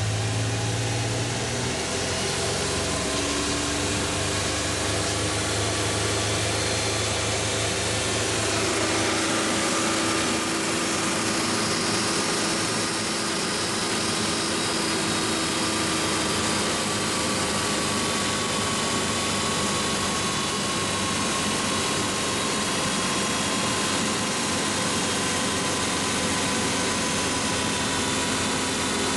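Suzuki Multicab's F6A three-cylinder carburetted engine idling steadily just after starting; its note settles in the first couple of seconds. A faint high whine slowly drops in pitch over the engine sound.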